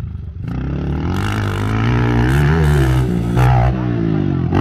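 Motocross dirt bike engine revving as the bike rides the track and takes a jump. The pitch rises and falls with the throttle, and it is loudest a little past the middle.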